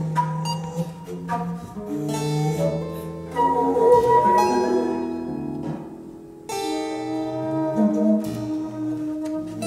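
Contemporary chamber music for harpsichord, pedal harp and woodwinds, including a square bass recorder: held wind tones under plucked harp and harpsichord notes. The music thins and fades about two-thirds of the way through, then comes back suddenly and loudly with a dense plucked chord over sustained wind notes.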